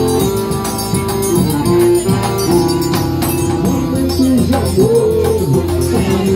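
Live forró band playing: accordion sustaining chords over a zabumba bass drum and small percussion, with a steady beat.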